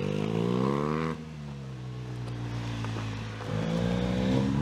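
BMW R 1250 R's boxer twin engine accelerating: its pitch climbs for about a second, drops suddenly at an upshift, holds steady, then climbs again near the end.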